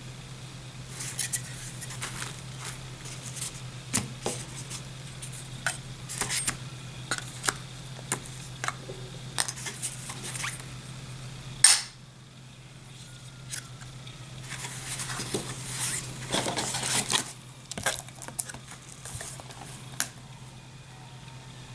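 Small hard plastic items handled during an unboxing: scattered clicks and light clattering, one sharp loud click about halfway through, then a few seconds of rustling, over a steady low hum.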